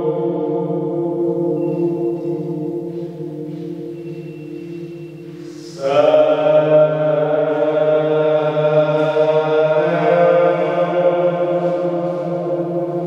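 A voice chanting long held notes that ring and echo inside the rock-cut granite chamber of the Barabar Caves. One held note fades away, then a new, louder one begins about six seconds in and holds on.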